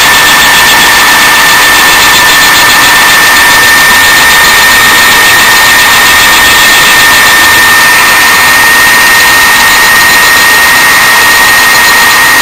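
DUMORE toolpost grinder, a high-speed grinder running at about 30,000 RPM, grinding the face of a small Briggs & Stratton engine valve turning in the lathe chuck, dry with no coolant. Steady high whine over a hiss of grinding.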